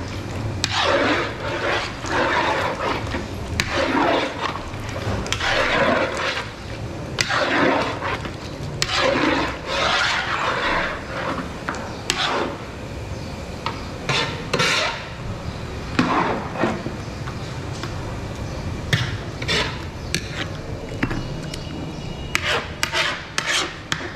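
Metal ladle scraping and stirring chunks of meat around a large steel karahi, about one stroke a second, thinning to occasional scrapes after about halfway. A steady low hum runs underneath.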